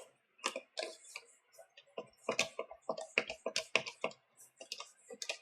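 Small screwdriver driving screws back into a laptop's plastic bottom cover: a string of irregular sharp clicks and ticks, two to three a second.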